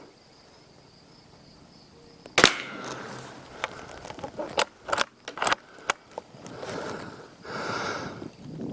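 A single .22 rimfire shot from a Savage Mk II BTV bolt-action rifle about two and a half seconds in, sharp and short. It is followed by a string of lighter clicks and a soft rustle.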